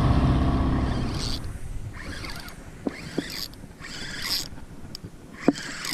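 Skiff's outboard motor dying away over the first second or two as the boat comes off plane. Then a few sharp clicks and brief scrapes from fishing gear being handled.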